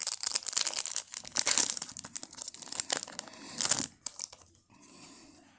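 A hockey card pack's wrapper being torn open and crinkled by hand, a dense crackling that lasts about four seconds and then turns fainter.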